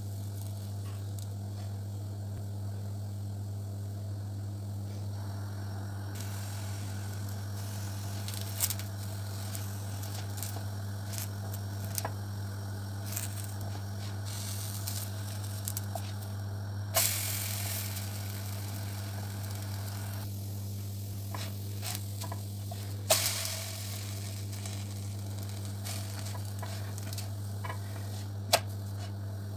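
Flatbread batter frying in a nonstick pan with a faint crackling sizzle, broken by a few short scrapes and taps of a silicone spatula against the pan. A steady low hum runs underneath.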